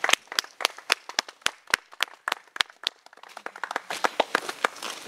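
Scattered hand clapping from a small group of people, thinning to a few single claps in the middle and picking up again near the end.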